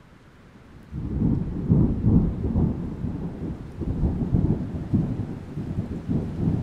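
Deep, rumbling storm noise that starts suddenly about a second in and then rises and falls unevenly in gusts.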